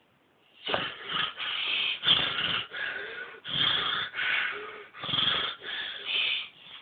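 Snoring: a quick run of about ten short, noisy breaths, one after another, starting a little under a second in.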